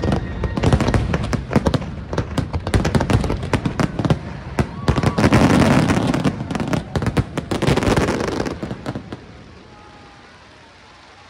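Fireworks display bursting in a rapid, dense barrage of bangs and crackles that dies away after about nine seconds.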